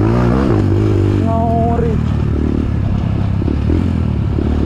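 Trail motorcycle engine running steadily, then easing off about two seconds in to a rougher, clattering sound with little engine note. It picks up again right at the end.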